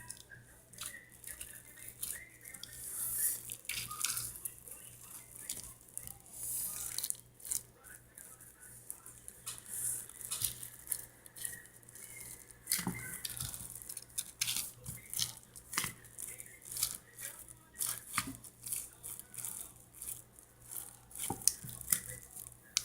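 Homemade squishy toy, a plastic bag filled with foamy soapy water, being handled and squeezed: faint, irregular crinkling and crackling clicks of the plastic and foam.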